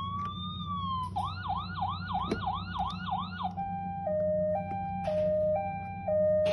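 Electronic toy siren sounds from a children's busy board's sound module: a slow rising-and-falling wail, then a fast yelping siren about three cycles a second, then a two-tone hi-lo siren switching about every half second. A steady low hum lies underneath.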